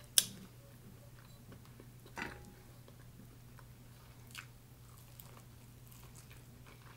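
Close-miked eating: mouth sounds of chewing, with a sharp click just after the start and a softer one about two seconds in.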